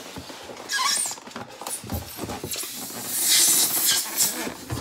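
Cardboard box and foam packing inserts being handled and pulled apart: rustling and scraping in several noisy bursts, the longest and loudest a little past the middle.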